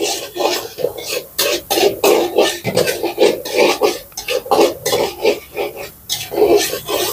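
Metal spatula scraping and knocking against a large metal pan as a cook stirs green peas over a gas burner, in a quick, uneven rhythm of about three strokes a second.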